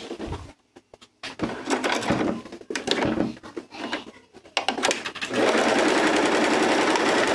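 Elgin Genius Plus+ domestic sewing machine stitching, first in short stop-start bursts, then running steadily from about five seconds in. It is finishing a straight-stitch seam and backtacking to lock its end.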